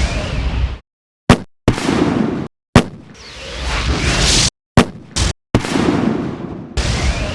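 Fireworks: swelling whooshes and several sharp bangs, with a low rumble, chopped into short pieces separated by dead silence.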